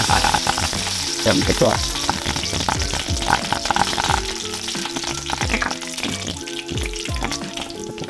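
Hot oil sizzling in a nonstick frying pan as a tempering of dried red chillies, seeds and freshly added green pieces fries. The hiss is fiercest just after the green pieces go in, then eases gradually.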